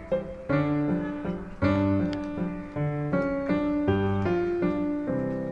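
Background piano music: a melody of struck notes over low chords.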